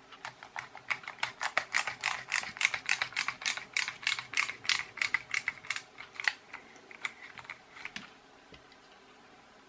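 Ratchet screwdriver clicking at about four clicks a second as it drives a screw into the charger's plastic case. The clicking stops about two-thirds of the way in, with a few stray clicks after.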